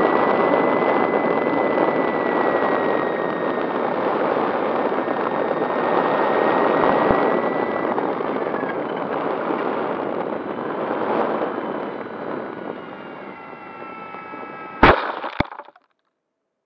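Air rush and propeller noise on board a foam RC model warplane in flight. The motor gives a steady whine that drops away about eight seconds in as the motor fails, and the air noise fades as the plane glides down. Near the end come two sharp impacts as it hits the ground.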